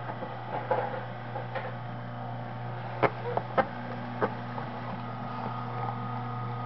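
Omega 8003 masticating juicer running with a steady low motor hum as its slow auger crushes a whole apple, giving a series of sharp cracks and snaps, the loudest about three seconds in.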